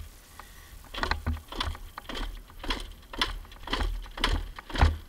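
Footsteps crunching on dry leaves and dirt, about two a second, with no engine running.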